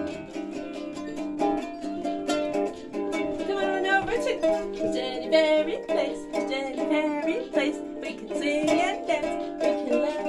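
A small toy ukulele strummed in a steady rhythm, with a woman singing along from a few seconds in.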